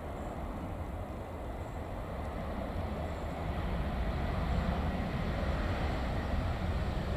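Airbus A321neo airliner's jet engines during the landing roll, a steady broad rumble that grows louder about halfway through as the aircraft rolls past.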